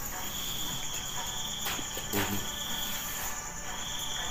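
Insects trilling steadily in a high pitch, cutting out briefly once or twice. A soft low thump comes about two seconds in.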